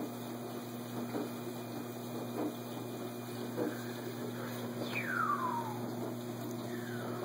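Steady low electrical hum, with a thin whistle-like tone gliding down in pitch for about a second near the five-second mark and a fainter falling glide near the end.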